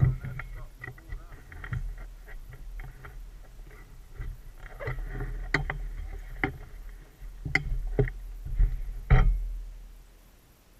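ATV engine running with a low rumble under irregular knocks and bumps, fading away near the end.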